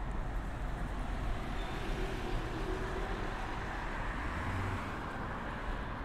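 City street traffic: a motor vehicle passing, its noise swelling early and easing off near the end.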